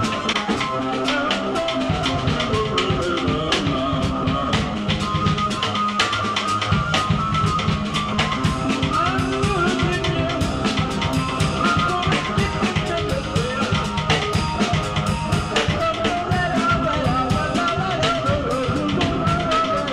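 Casio keyboard and drum kit playing noise rock live: fast, busy drumming under wavering, warbling keyboard tones and a steady low drone.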